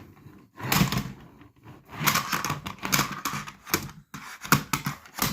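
Toy police car being handled and worked by hand: an irregular run of clicks, clatters and knocks.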